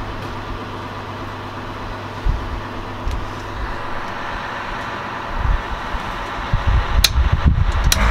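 A steady low mechanical hum, with low handling knocks and a few sharp clicks in the last couple of seconds.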